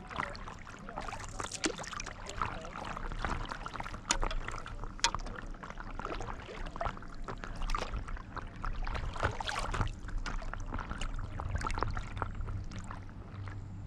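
Stand-up paddle strokes in calm lake water: the paddle blade dipping and pulling, with irregular splashes and water trickling and dripping around the board.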